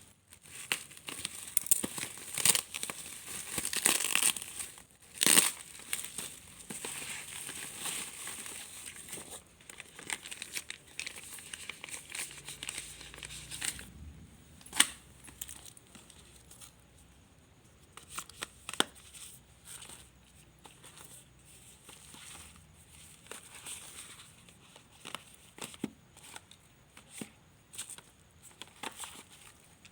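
Packaging being handled and opened: crinkling and tearing, loudest in the first few seconds, then quieter rustling with scattered small clicks.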